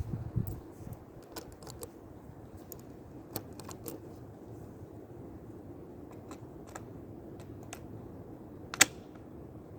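Breeze rumbling on the microphone, strongest at the start, with scattered small clicks and one much louder sharp crack near the end.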